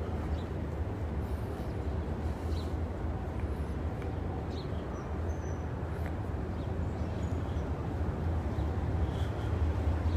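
Steady low outdoor rumble picked up by a handheld phone microphone while walking, with a few faint high chirps scattered through it.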